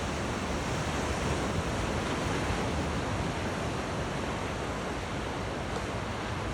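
Ocean surf washing onto a beach, a steady rushing noise, with wind rumbling on the microphone.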